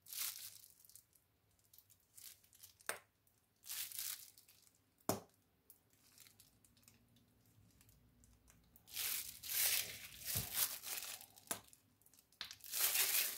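Plastic bag, used as a piping bag, crinkling and rustling in the hands as a soft cheese filling is squeezed out of it. It comes as short scattered rustles with a couple of sharp clicks, busiest over the last few seconds.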